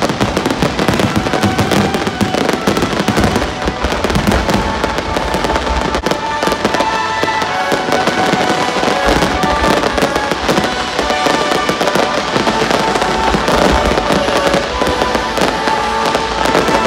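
Aerial fireworks going off in a dense, continuous barrage: a constant rapid run of bursts and crackling with no pause.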